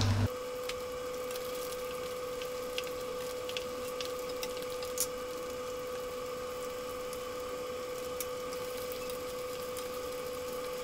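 A steady hum carrying a constant mid-pitched tone, with a few faint pops from wheat gluten frying in oil in a wok. It starts abruptly just after the beginning.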